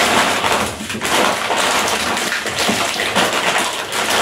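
Foil-plastic snack sachets crinkling and rustling continuously as several hands pull a strip of them apart.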